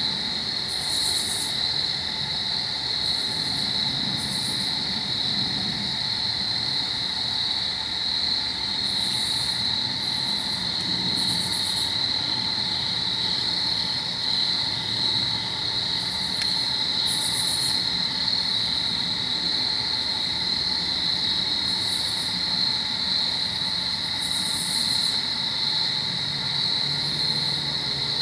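Evening insect chorus: crickets trilling steadily, with short, higher-pitched buzzes that come and go every few seconds.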